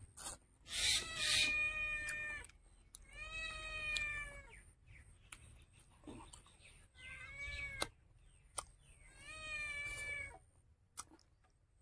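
A cat meowing four times, each meow about a second long and falling slightly in pitch at its end.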